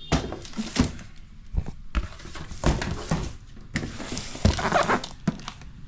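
Packaging of a vacuum cleaner being handled and opened: an irregular run of knocks, rustles and scrapes.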